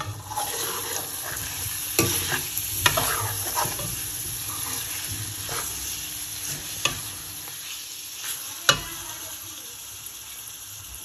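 Potato curry sizzling in plenty of oil in a steel karahi while a metal slotted spoon stirs it, scraping and knocking against the pan every second or two. The sizzle fades a little toward the end.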